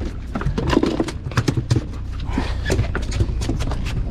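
Steady low hum of a fishing boat's engine under a run of sharp, irregular clacks and knocks from a stickbait lure and tackle being handled on the deck.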